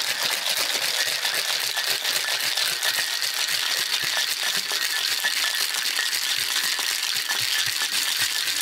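Metal cocktail shaker shaken hard and without a break, its contents rattling fast and evenly against the tin.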